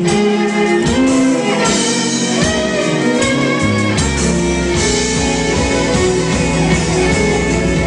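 Live R&B/funk band playing: electric guitar and violin over drums and keyboard, with a deep bass line coming in about four seconds in.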